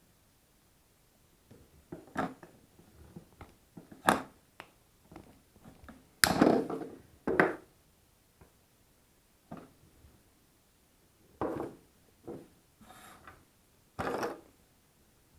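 Irregular clicks and knocks of small hard objects being handled and set down on a hard surface, a mains plug and tools being picked up and moved about. The loudest knocks come in a cluster about six to seven seconds in.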